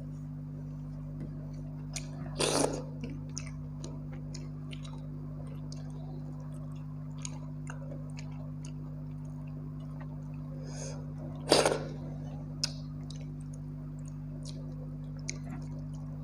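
Eating by hand: fingers mixing and squishing mashed brinjal and tomato and scooping watered rice, with soft clicks of mouth and fingers, and two louder short noisy sounds, a couple of seconds in and about twelve seconds in. A steady low hum lies under it all.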